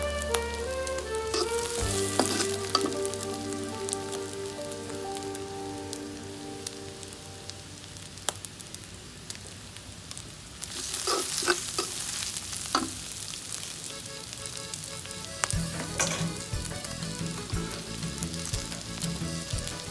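Shallots, garlic and dried anchovies sizzling in hot oil in a wok. A metal spatula stirs them, scraping and clicking against the pan.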